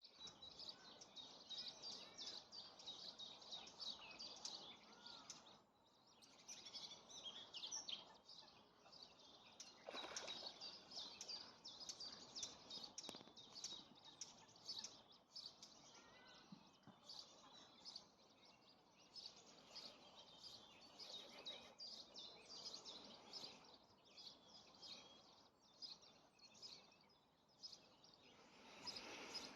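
Faint, busy high-pitched bird chirping, many short calls in quick succession, over a soft even background hiss.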